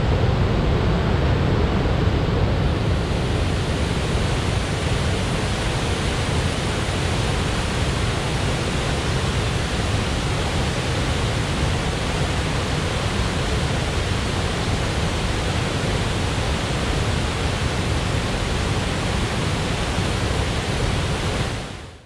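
Rushing water of a forest stream cascading over rocks, a steady even rush that fades out at the very end.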